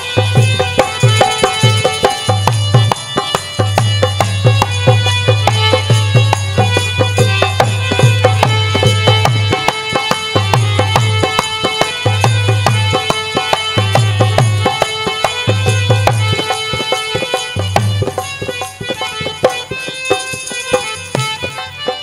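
Instrumental Indian devotional folk music with no singing: a hand-drum rhythm with deep strokes that come and go, quick clattering percussion, and a steady melody over it.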